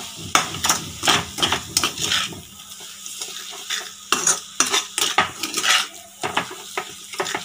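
Steel slotted spatula scraping and clacking against a kadai in quick, irregular strokes as it stirs grated carrot with sugar and ghee. This is the stage of carrot halwa where the sugar is melting into the carrots.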